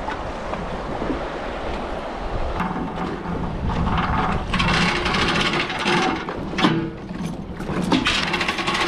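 Outboard motor of a small boat running under way, with wind and water noise. About two and a half seconds in, a steady engine hum comes up, along with repeated knocks and rattles from the hull and gear.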